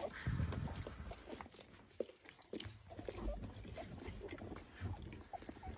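Eleven-day-old Dalmatian puppies making short, faint squeaks and grunts, with scattered small knocks and rustles.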